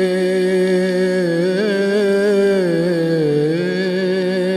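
Devotional bhajan singing: a voice holds one long drawn-out note that wavers with small ornaments and dips in pitch about three seconds in.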